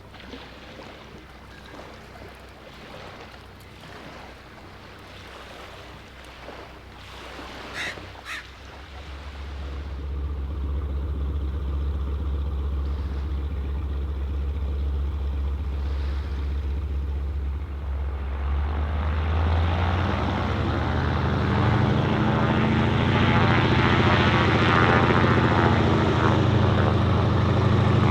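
A seaplane's propeller engine droning, growing louder in two steps, about a third of the way in and again about two thirds in. Before it builds, there is only quiet background with a couple of short sharp sounds.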